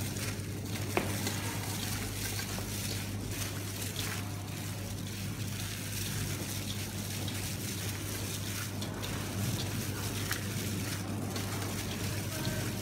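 Wet squelching and squishing of chunks of pork being kneaded by plastic-gloved hands in a stainless steel bowl, working a sugar and MSG marinade into the meat, over a steady low hum.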